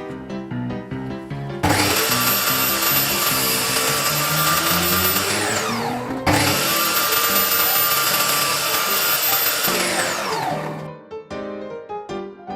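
Homemade table saw's motor and blade switched on and run at speed for about four seconds, then switched off and winding down with a falling whine. This happens twice in a row, with background music underneath and before and after.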